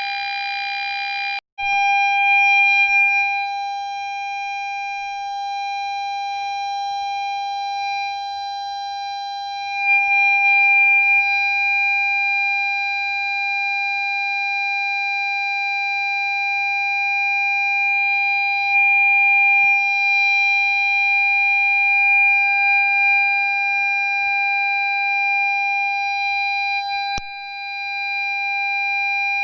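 Ford Fiesta parking sensor sounding one continuous steady tone instead of separate beeps, the warning that an obstacle is very close. About a second and a half in, a buzzier version of the tone breaks off briefly and the clean tone takes over.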